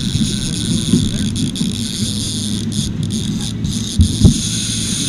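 A boat's outboard motor running steadily while underway, with water rushing along the hull. Two sharp knocks come about four seconds in.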